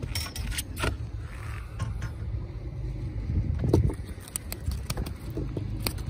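Scorpionfish flopping on a boat's composite deck, a scattering of light taps and slaps over a steady low rumble.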